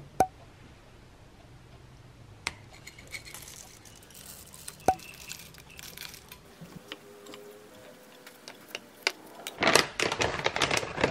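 A few light clinks of a ceramic bowl and wooden spoon, each ringing briefly, and the dry rustle of granola tipped into the bowl, with a louder burst of rattling and clicking near the end.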